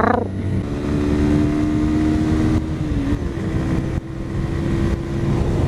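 Honda CBR125R's single-cylinder engine running at a steady cruise, with a brief dip in pitch about three seconds in, over heavy wind and road noise.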